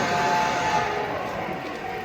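Busy exhibition-hall ambience: a crowd's background chatter, with a held tone during the first second or so.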